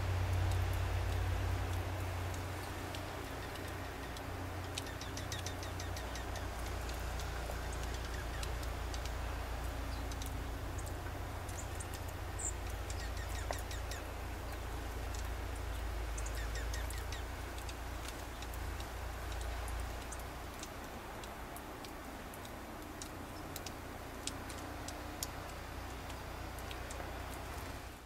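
Small songbirds chirping in short, quick series of high notes over a steady low rumble.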